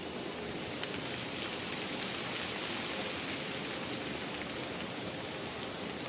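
Steady, even rain-like hiss with a few faint ticks scattered through it.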